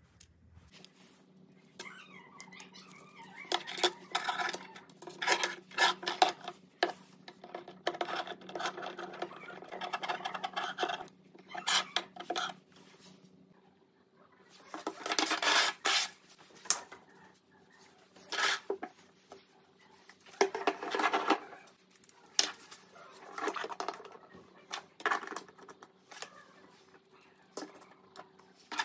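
Carbon-fibre drone frame parts and small metal fittings being handled and set down on a wooden desk: irregular clicks, knocks and rattles, with a few bursts of dense clattering.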